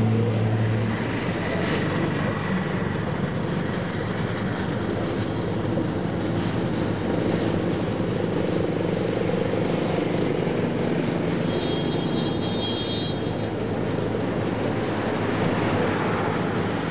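Steady rushing noise of road traffic passing on a roadside, with a brief high tone about twelve seconds in.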